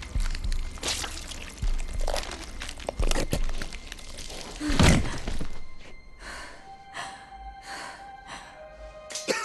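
Horror film soundtrack: dark score under gasping, gurgling sounds from a slashed throat and a run of sharp hits, the loudest about five seconds in. In the last few seconds, held music tones come in with softer pulses.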